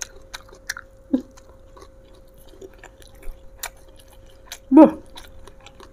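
Close-up mouth sounds of someone chewing raw green eggplant dipped in sambal, with small wet clicks of the mouth. There is a brief voiced sound about a second in and a louder one near the end.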